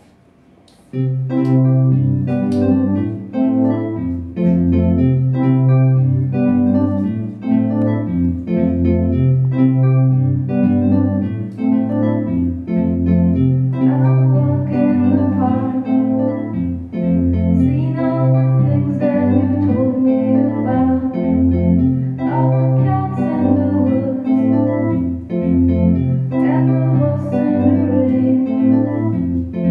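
Live dream-pop band music: an organ-toned synthesizer playing sustained chords over a stepping bass line, with electric guitar, starting suddenly about a second in.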